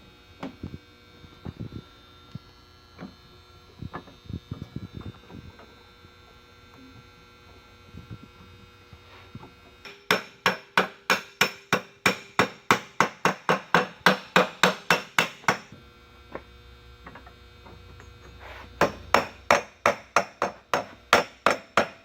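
Hammer blows on a metal strip being formed around a round tube to curve it. The first half has scattered light taps. Then come two runs of quick, even, ringing strikes, about four to five a second, each lasting several seconds, with a short pause between them.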